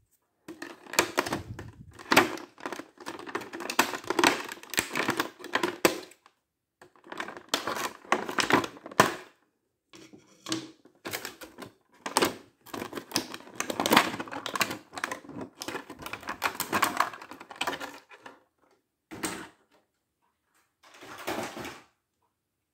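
Thin clear plastic packaging crackling and crinkling in dense bursts with short pauses, as it is cut open with scissors and an action figure is pulled from its blister tray.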